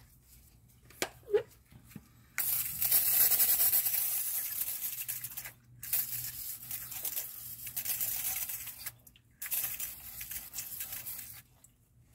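Two light clicks, then an aerosol spray can with an extension straw hissing in three long bursts as it sprays onto the transmission case.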